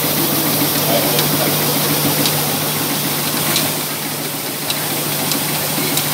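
An engine running steadily, with a constant hum.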